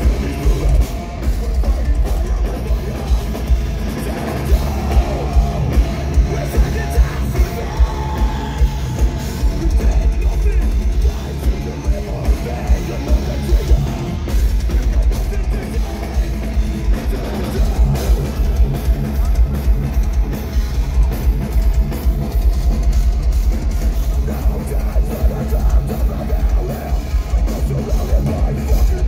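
A metal band playing live: distorted guitars over a drum kit, loud and bass-heavy. Accented drum hits come about twice a second through the first half, then the playing grows denser.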